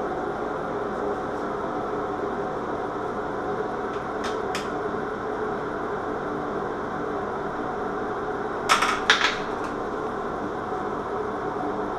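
Steady fan-like hum, with a couple of light clicks about four seconds in and a quick, louder cluster of clicks around nine seconds in, from handling the metal vanity light fixture and its parts.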